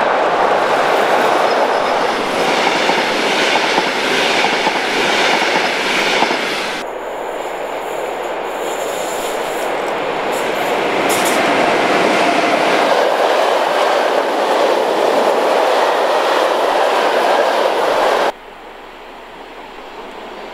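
Electric trains passing close by with wheels rolling and clattering on the rails. First a DB class 111 locomotive with double-deck coaches goes by, then, after an abrupt change, a freight train of hopper wagons. Near the end the sound drops sharply to a quieter approaching train.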